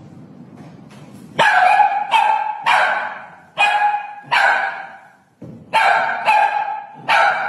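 A small dog barking: about eight sharp barks in three short runs with brief pauses between them.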